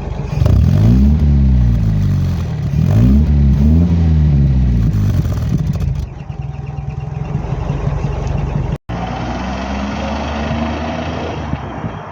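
Petrol engine blipped twice, each rev rising and falling in pitch, then settling to a steady, even idle. This is the engine with its misfire sorted, using a Gunson Colortune. The sound cuts out for an instant about nine seconds in.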